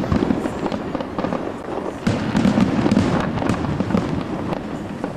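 Fireworks display: aerial shells bursting in a rapid run of bangs and crackles over a low rumble, getting louder about two seconds in.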